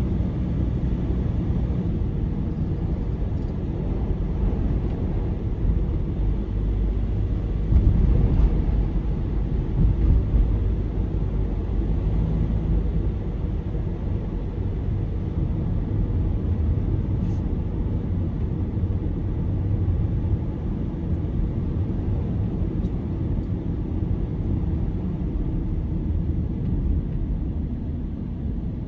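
Steady low rumble of a car driving along a road, tyre and engine noise heard from inside the cabin, a little louder about eight and ten seconds in.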